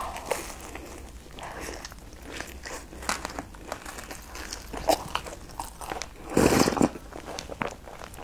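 Close-miked eating of crusty twisted bread: a bite into the crisp crust, then chewing with many small crunches and crackles, and one louder, longer burst about six and a half seconds in.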